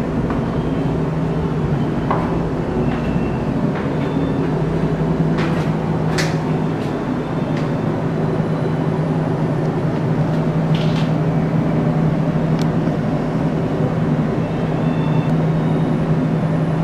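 Steady low machine hum with a few faint clicks scattered through it.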